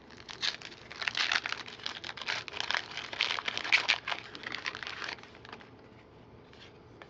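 A trading-card pack's wrapper being torn open and crinkled in the hands: a dense crackle that lasts about five seconds and dies away near the end.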